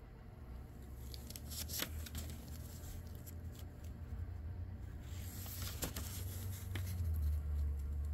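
Pages of an old paper book being turned by hand, with a crackly rustle about two seconds in and again around five to six seconds in, over a steady low hum.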